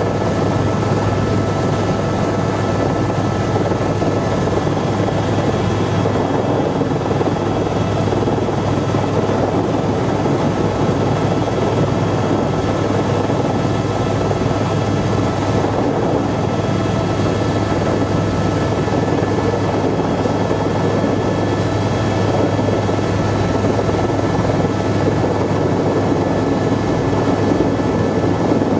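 Tour helicopter in flight, heard from inside the cabin: a loud, steady rotor drone with a thin high engine whine over it.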